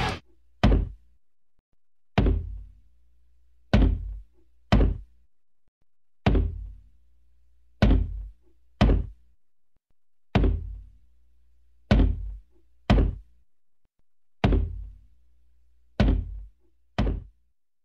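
Deep, dull thuds in a slow, even pattern, three hits about every four seconds, each with a short ringing tail.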